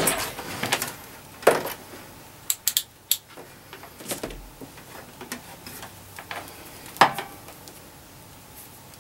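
Handling noise as a digital multimeter and its test leads are picked up and moved on a wooden workbench: a run of small sharp clicks and knocks, the loudest about seven seconds in.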